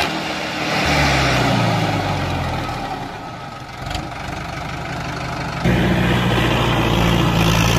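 Tractor engine running steadily, dipping in the middle and stepping up louder and fuller in its low end about six seconds in.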